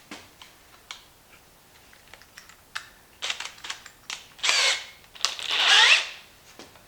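Light clicks and taps of handling, then two short bursts of a drill with a wavering whine, the second longer, as the rivets on the compost tumbler's plastic lid ring are drilled out.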